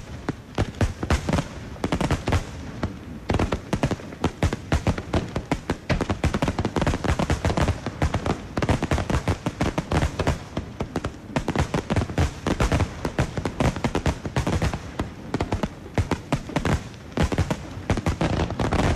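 Starmine fireworks barrage: aerial shells bursting in quick succession, several bangs a second without a break.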